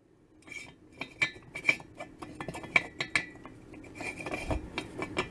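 Cast-iron cylinder liner clinking and scraping against the rim and bore of an aluminium JAWA cylinder as it is turned and pressed by hand to try the fit: a string of sharp metallic clinks with a short ring, coming closer together in a rattling scrape near the end. The new Czech-made liner does not fit the old Czechoslovak cylinder.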